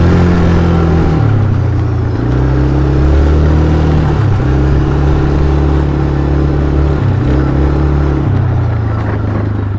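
Engine of a vehicle being ridden, running loud and close. Its pitch shifts up and down in steps several times as the throttle or gear changes.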